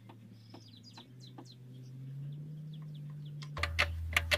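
Faint short bird chirps and light clicks over a low steady hum. A little before the end the hum suddenly drops lower and a run of sharp ticks begins.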